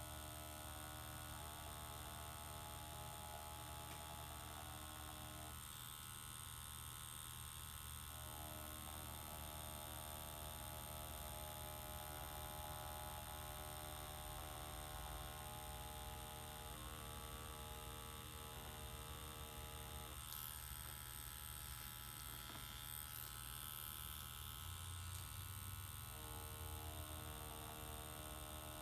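Tattoo machine running with a steady hum as the needle lines a design. Its middle tones thin out twice for a few seconds.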